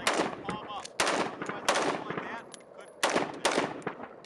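Toy gun playing a machine-gun sound effect: about five short bursts of rapid fire, each starting sharply and fading quickly.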